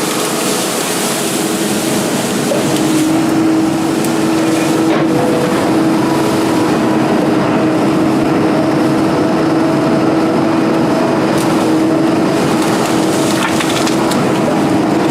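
A 240D excavator running steadily under working load, its engine and hydraulics making a constant tone over a dense, gritty crunching noise with a few sharp knocks, as the machine is put through its paces after a thumb repair.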